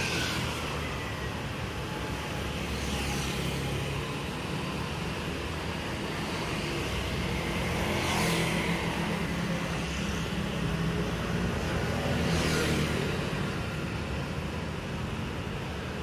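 Street traffic: a steady low engine hum, with vehicles passing several times, each pass a swell that falls in pitch.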